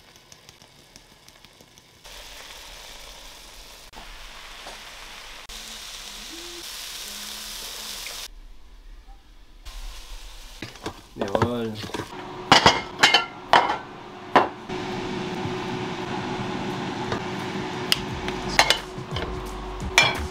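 Chicken breast strips sizzling as they fry in a pan. In the second half comes a run of sharp, loud clinks of dishes and cutlery.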